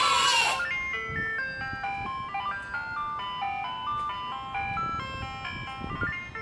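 An ice-cream-van style jingle: a bright melody of chiming single notes. It opens with a brief, loud swoosh that sweeps downward.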